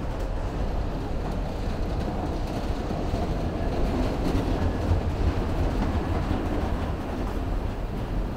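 A train running past, heard as a steady low rumble that swells a little toward the middle.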